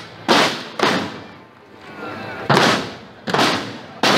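Marching band drums struck together in loud single beats: two strokes about half a second apart, then after a pause three more at a slightly slower, even pace. Low crowd chatter between the beats.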